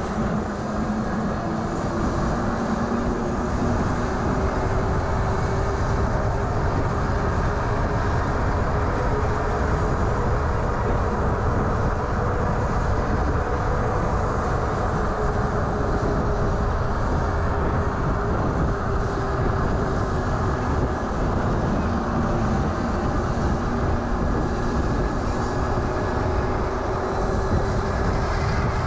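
Riding an electric bike at speed: wind rushing over the camera's microphone and tyre noise on the road, with a faint motor whine that slowly drifts in pitch.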